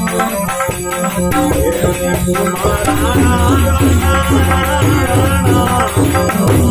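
A man singing a devotional bhajan over instrumental accompaniment with a steady beat; his wavering, held melody comes in about a second and a half in.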